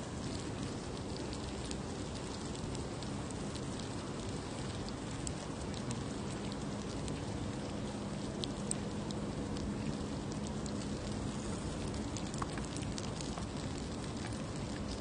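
Slices of pork belly sizzling on a hot grill plate: a steady hiss with scattered small pops of spitting fat.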